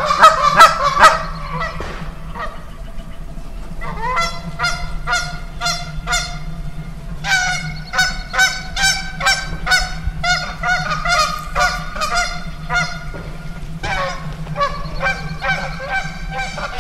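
A flock of Canada geese honking, many calls overlapping in quick runs, with brief lulls about two seconds in and again a few seconds before the end.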